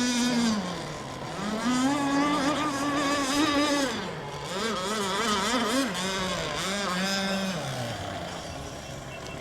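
Engine of a radio-controlled racing boat running on the lake, its pitch falling and rising as the throttle is eased and opened: it drops about half a second in, climbs and holds high, drops again around four seconds in, wavers, and falls off near the end.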